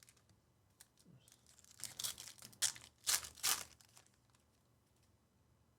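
A trading card pack's wrapper being torn open and crinkled, in several short rustling bursts about two seconds in, preceded by a few faint clicks.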